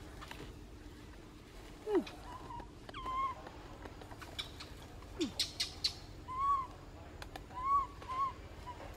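Baby macaque giving short, rising-and-falling coo calls, about six in all, with two lower downward-sliding calls among them: a lost infant's cry for its mother. A quick run of clicks between the calls, midway through.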